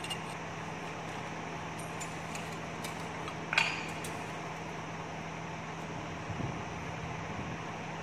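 Steady low machine hum, with one sharp ringing metal clink about three and a half seconds in and a couple of faint knocks near the end, as outside calipers are handled around a turned steel bar on a lathe.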